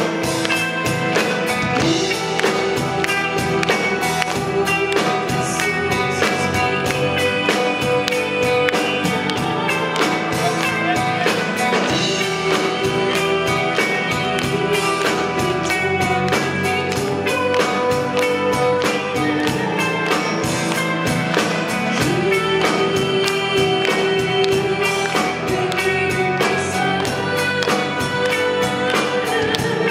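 Live band music: a woman singing long held notes into a microphone over the band, with a steady, fast beat.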